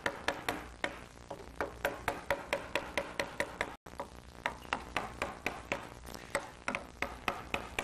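Carving mallet striking the handle of a 35 mm number 5 gouge at a steady rhythm, about three sharp knocks a second, as the gouge roughs out a block of white pine.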